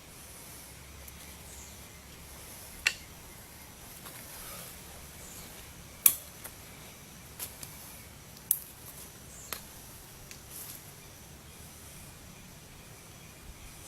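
Four sharp metallic clicks at irregular intervals a few seconds apart, with a few fainter ticks between them, over a steady low hiss.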